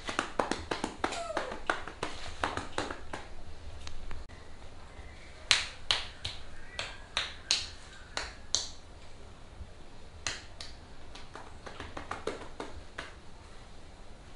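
Sharp slaps of a massage therapist's hands striking a client's arm in quick percussive massage strokes, in three runs separated by short pauses.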